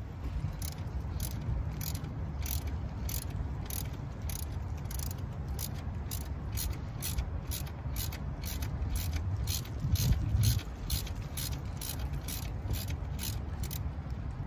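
Hand ratchet wrench clicking steadily, about three clicks a second, as it backs out the bolts holding the throttle body to the engine's intake. A louder dull thump comes about ten seconds in.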